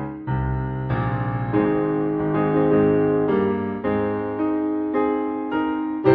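Piano music playing slow, sustained chords, with a new chord struck every second or so.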